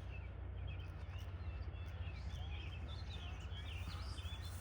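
Birds chirping, many short scattered calls, over a steady low background rumble.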